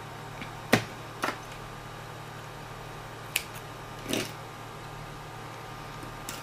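A handful of short, sharp clicks and taps from handling the crochet piece and a small tool on the work surface, the loudest a little under a second in, over a steady low electrical hum.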